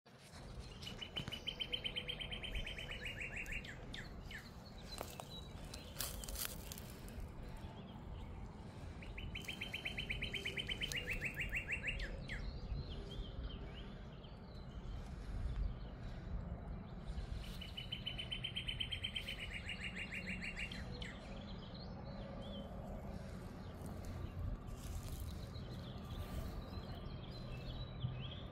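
A songbird singing a rapid, flat trill of evenly spaced notes, each trill about three seconds long, repeated three times roughly eight seconds apart, with fainter chirps in between.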